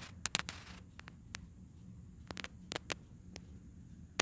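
Scattered sharp clicks and ticks, some in quick runs of two or three, over a faint steady low hum.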